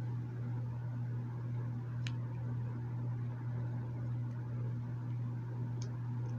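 A steady low hum with two faint, sharp clicks of small plastic action-figure parts being handled, one about two seconds in and one near the end.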